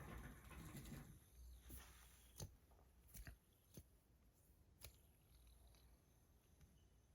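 Near silence with a few faint, sharp clicks spread through the first five seconds, from handling a stainless steel fidget spinner.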